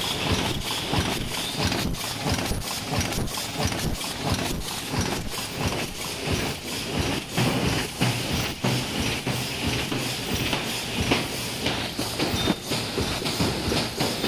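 Gear- and cam-driven paper bowl forming machine running at production speed: a fast, continuous, uneven clatter of many mechanical strokes a second over a steady hiss.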